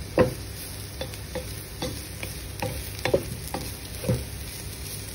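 A spatula stirring and turning chopped banana stem in a pan, knocking and scraping against the pan every half second to a second over a faint steady sizzle. The first knock, just after the start, is the loudest.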